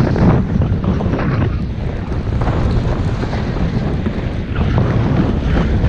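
Wind rushing over the camera's microphone while riding downhill at speed, with the swishing hiss of sliding through deep powder snow, swelling with each turn about once a second.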